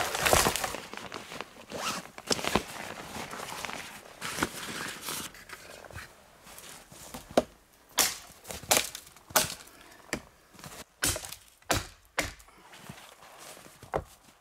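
Chopping blows into a dead spruce trunk. Sharp single knocks at an uneven pace, about one or two a second through the second half, after a first half of rustling with a few scattered knocks.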